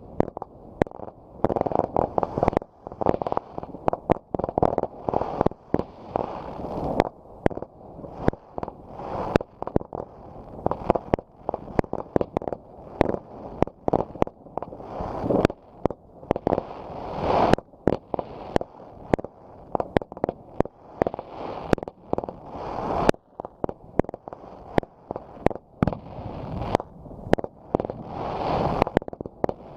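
Fireworks going off in rapid succession: many sharp bangs and pops every second, over a continuous crackle.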